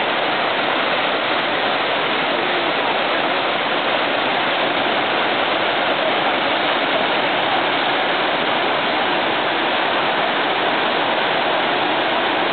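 Brook in flood: brown floodwater rushing and churning over its banks, a steady, even rushing noise.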